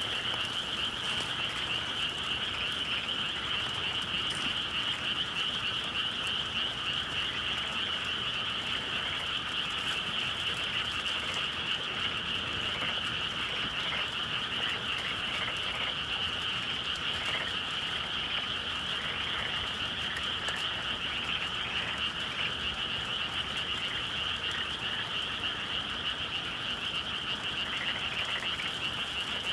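A dense, steady chorus of many frogs calling at once, with no break, typical of a spring evening in the countryside.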